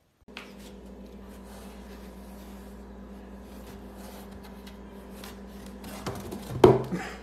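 Light scratching and rustling of a cat pawing in a cardboard box, over a steady electrical hum, with one louder bump near the end.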